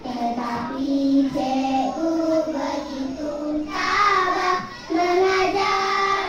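A group of young schoolchildren singing a song together in unison, with a short break between phrases about five seconds in.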